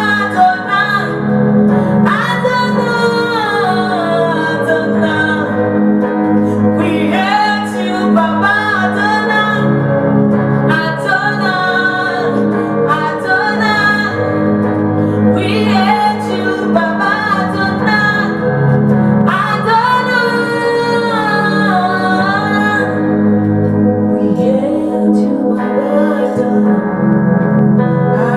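Worship music: a woman singing over sustained instrumental accompaniment, with echo.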